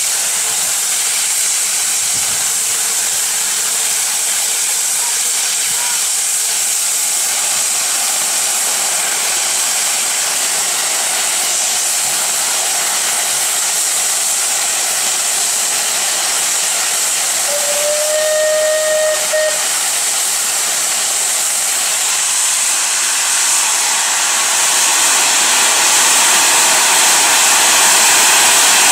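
Rebuilt Bulleid Light Pacific steam locomotive 34046 Braunton's safety valve blowing off in a steady loud hiss. About eighteen seconds in comes a short whistle blast of about two seconds. In the last few seconds the hiss grows louder as the cylinder drain cocks open and steam blasts out at the front for departure.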